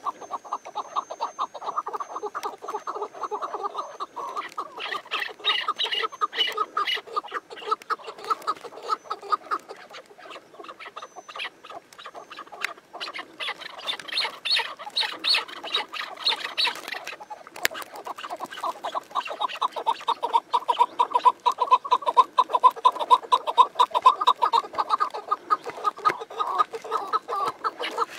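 Chukar partridge calling: a rapid, unbroken run of short repeated notes, with stretches of higher, sharper notes, getting louder in the second half.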